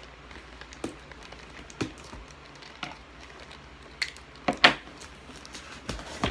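A taped package being opened by hand: packing tape and packaging rustling and crinkling, with a string of sharp knocks and clicks at uneven spacing, the loudest about four and a half seconds in.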